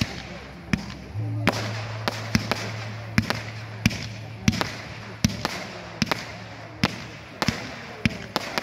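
Fireworks display: a barrage of aerial shots firing in quick succession, a sharp report about three times every two seconds, with a hiss of burning effects between the shots.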